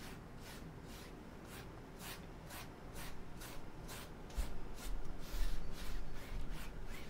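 Blender brush brushing back and forth over wet oil paint on a stretched canvas, a dry scratchy swish about twice a second. Low bumps come in over the second half and are the loudest sounds.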